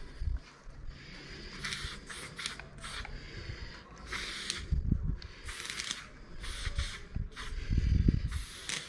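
Aerosol spray-paint can hissing in a series of short spurts, each under a second, as paint lines are laid onto a wall. A few low thuds fall between the spurts, the loudest near the end.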